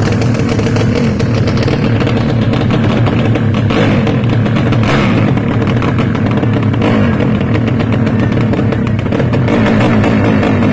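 Tuned Yamaha Jupiter underbone racing motorcycle with an open exhaust, running loud and steady with a rapid crackle of exhaust pulses.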